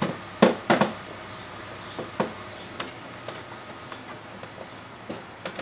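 Sharp plastic clicks and knocks from the front bumper trim of a B8 Audi S5 being worked and pressed into its retaining tabs: two loud clicks close together near the start, another about two seconds in, then a few lighter ticks.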